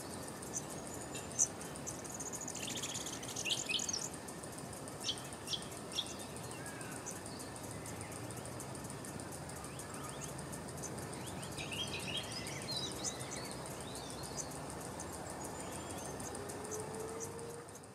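Small birds chirping and twittering in two busier spells, about three seconds in and again around twelve seconds, with single chirps between, over a steady high insect trill.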